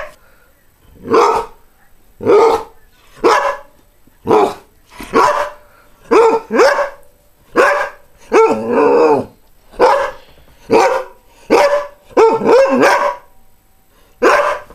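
Greyhound barking over and over, about one bark a second, some in quick pairs and one longer, drawn-out bark a little past the middle.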